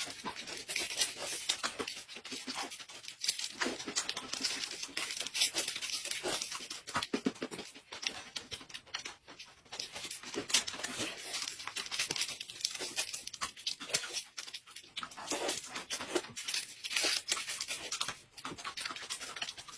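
A person eating snacks close to the microphone: irregular crunching and chewing, with some crinkling and tearing of the snack packaging.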